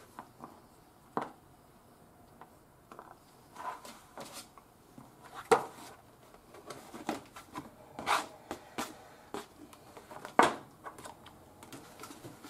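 Knife chopping on a thin flexible plastic cutting sheet, then the sheet flexing and rubbing as it is lifted and tipped, the knife set down and a hand rubbing across the board. Irregular knocks and short rustles, a few of them sharp and louder.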